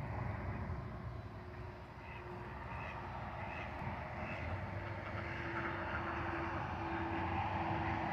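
Steady low outdoor rumble, with a few faint short chirps about two to four seconds in and a faint steady hum in the last few seconds.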